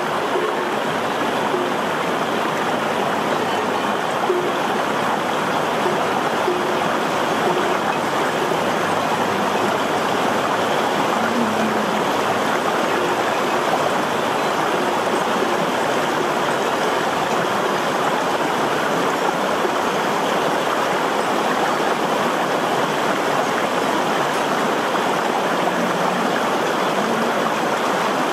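Shallow, rocky mountain stream rushing steadily over stones.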